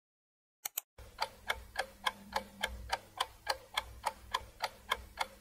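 Clock-ticking sound effect counting down the answer time, starting about a second in after two quick clicks and going at about three and a half ticks a second over a faint low hum.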